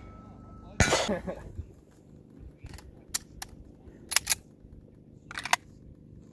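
A loud pistol shot about a second in, followed by several fainter, short sharp cracks in ones and pairs over the next few seconds.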